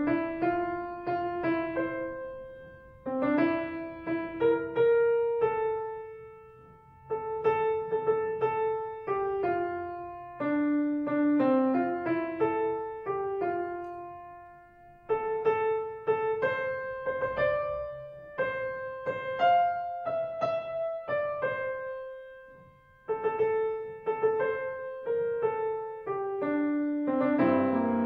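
Solo piano playing a slow hymn tune in chords, phrase by phrase, each phrase ending on a held chord that dies away before the next one starts.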